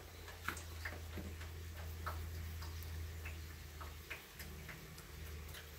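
Faint, irregular ticking over a low steady hum: eggs in a pot of water on the stove, starting to come to the boil.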